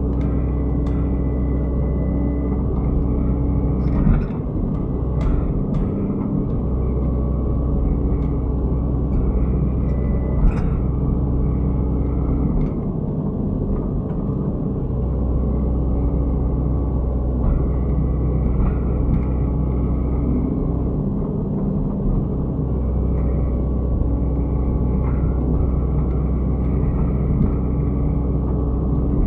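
Hydraulic excavator's diesel engine running steadily under working load, its low note easing off now and then, with a few sharp knocks about four, five and ten seconds in.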